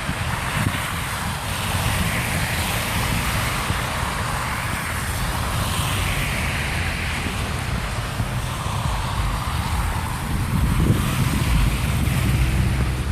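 Blizzard wind gusting, with a steady whooshing hiss and low rumbling buffeting on the microphone that grows heavier near the end.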